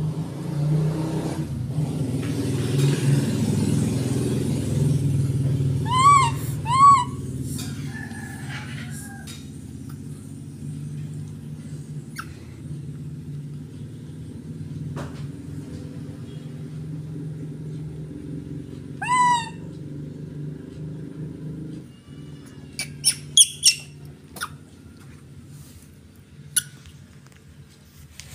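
Baby macaque giving short high squeaky calls that rise and fall in pitch: two close together about six seconds in and one more about nineteen seconds in. A steady low hum runs underneath, and a few sharp clicks come near the end.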